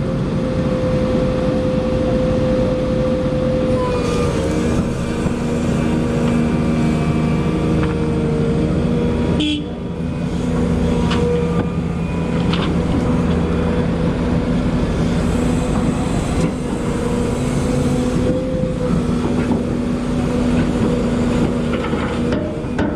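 Volvo EC220E excavator's diesel engine running under load, with a steady hum whose pitch sags and recovers slightly as the hydraulics work. Its loudness drops briefly about ten seconds in.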